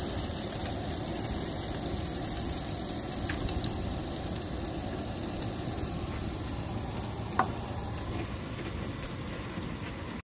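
Scrambled eggs and sausages frying in two pans on a Coleman two-burner propane camp stove: a steady sizzle over the hiss of the burners. One sharp click about seven seconds in.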